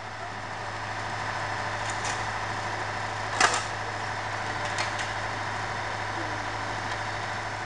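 A heavy engine running steadily, with a few short sharp knocks, the loudest about three and a half seconds in.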